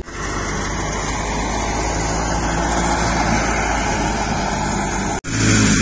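Wheat thresher running steadily: a constant dense mechanical rush over a low engine hum. It breaks off for an instant about five seconds in and resumes a little louder.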